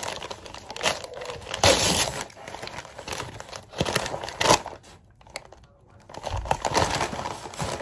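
Brown-paper mailer bag crinkling and rustling as it is handled and pulled open, in irregular bursts with a short lull about two-thirds of the way through.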